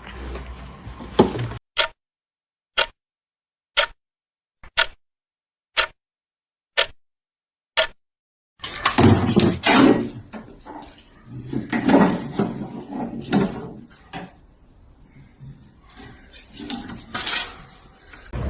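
A clock ticking once a second, seven ticks over total silence. About halfway through, a louder, busy stretch of noisy sound takes over.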